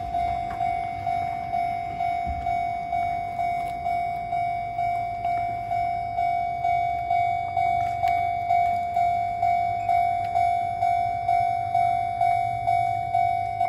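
Japanese railway level-crossing warning bell ringing steadily, about two strokes a second, signalling that a train is approaching.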